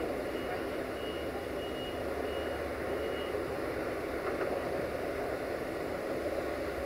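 Steady engine rumble of a diesel train standing at the platform, with a series of short high electronic warning beeps, about five, spaced a little over half a second apart, that stop about three seconds in.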